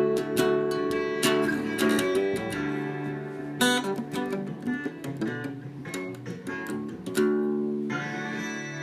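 Acoustic guitar music, strummed and picked, with strong chords struck about three and a half seconds in and again near the end, ringing out.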